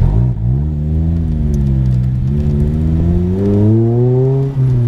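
Lotus Elise 111R's 1.8-litre four-cylinder engine, breathing through an aftermarket Larini exhaust, pulling hard after a gear change: the revs shoot up at the start, then climb steadily and drop sharply near the end. Wind buffets the uncased camera's microphone in the open cabin.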